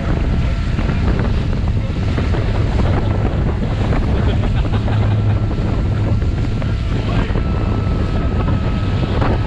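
Motorboat running underway, with wind buffeting the microphone.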